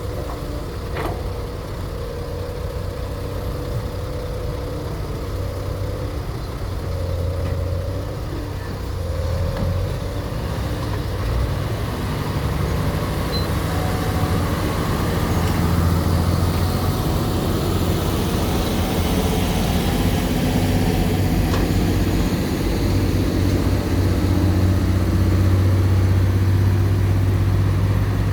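Heavy diesel engine of an excavator running steadily with a low hum, growing gradually louder over the stretch, with a faint higher hydraulic-type whine coming and going in the first several seconds.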